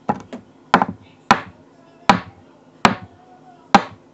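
A series of sharp, hard knocks, roughly one every three quarters of a second, each with a brief ringing tail.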